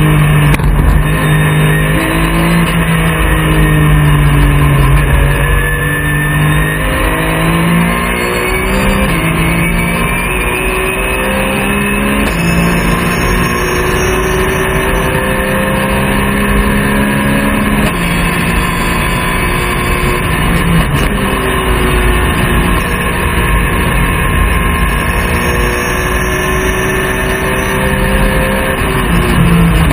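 Porsche 911 GT3 Cup race car's flat-six engine at racing speed, heard from inside the cockpit, its note stepping up and down in pitch several times as it changes gear.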